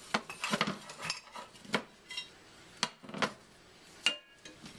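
A frying pan and spatula knocking and clinking as bacon pieces are pushed around in the pan on an electric stovetop: a string of separate knocks, a couple of them ringing briefly, with the sharpest clink near the end.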